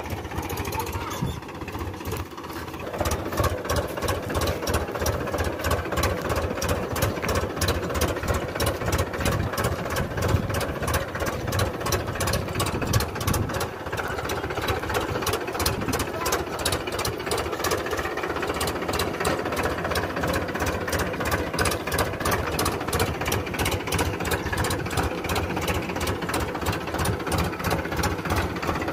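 Powertrac Euro 50 tractor's three-cylinder diesel engine running with a steady, fast diesel clatter, louder from about three seconds in.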